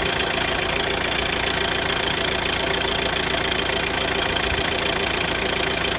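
Renault Grand Scénic's 1.6 dCi 130 four-cylinder diesel engine idling steadily with a fast, clattering tick, a noise the owner puts down to a noisy timing chain.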